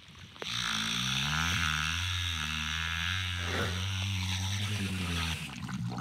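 Killer whale imitating a boat's outboard motor: a steady, engine-like low drone with sliding overtones. It starts about half a second in and stops shortly before the end.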